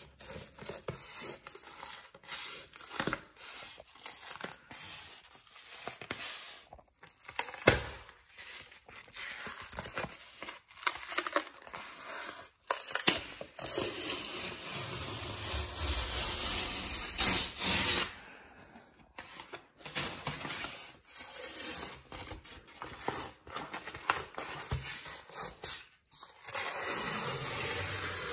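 Wallpaper being peeled off a plaster wall by hand, the paper tearing and rasping in a series of irregular pulls, with a longer unbroken rip about halfway through.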